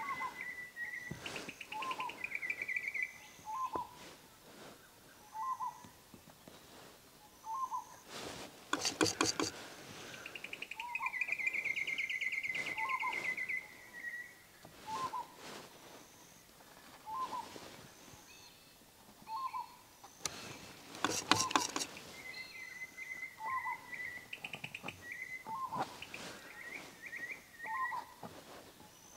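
Birds calling: one repeats a short call about every two seconds, while others give longer warbling, trilled calls. Now and then come short clusters of sharp scrapes, the loudest sounds here, from a palette knife worked on a canvas.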